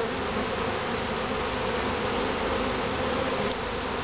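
Honeybees buzzing steadily around an open top bar hive, a dense continuous hum of many bees.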